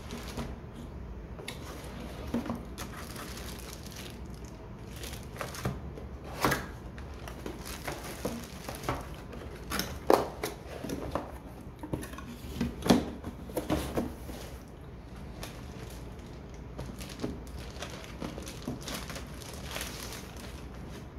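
Cardboard box inserts and plastic packaging being handled by hand: irregular rustling and crinkling of plastic wrap with knocks of cardboard, loudest in a busy stretch through the middle.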